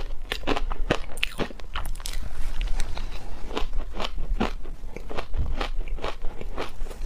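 Shaved ice dusted with matcha and milk powder being bitten and chewed, a fast, irregular run of crisp crunches.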